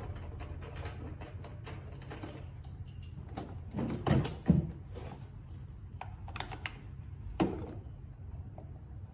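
Tools and small parts clicking and clattering during work on a motor, with louder knocks about four seconds in and again past the seven-second mark. A steady low hum runs underneath.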